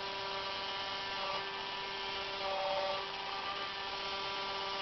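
Small electric motor of a New Bright remote-control toy fire truck humming steadily as it swings the boom round to the right, briefly louder a little past halfway.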